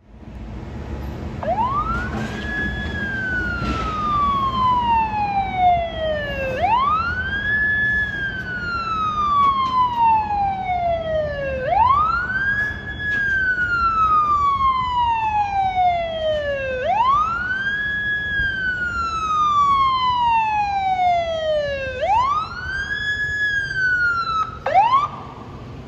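Fire department emergency vehicle's siren on wail: each cycle rises quickly and then falls slowly over about five seconds, five times over, with a last short rise cut off near the end. A steady low rumble of traffic and engine runs underneath.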